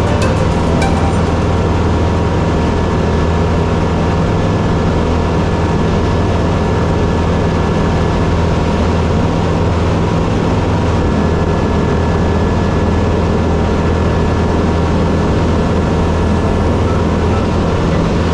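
A light aircraft's piston engine and propeller running steadily in flight, heard from inside the cockpit as an unchanging drone.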